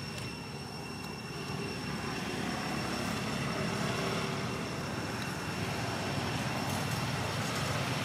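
Low rumble of motor traffic, growing louder about a second and a half in and then holding steady, with a faint steady high-pitched whine above it.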